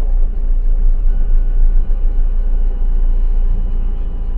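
Steady low rumble of a vehicle's engine and road noise heard from inside the cab, with a few faint steady tones above it.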